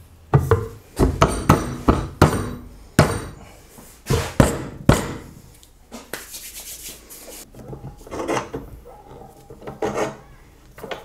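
Wooden frame being knocked and handled on a workbench: about ten sharp wooden knocks in the first five seconds, then quieter rubbing and shifting of wood.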